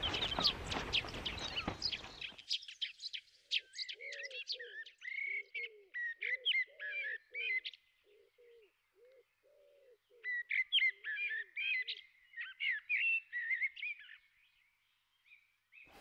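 Birdsong: songbirds chirping and trilling in quick, high phrases over a lower, regularly repeated cooing call, breaking off for a couple of seconds about halfway through. A rush of outdoor noise fills the first two seconds or so.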